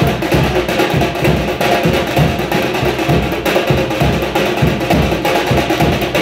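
Several dhol drums played together in a steady, loud rhythm. Deep bass beats come about twice a second under rapid, sharp stick strokes.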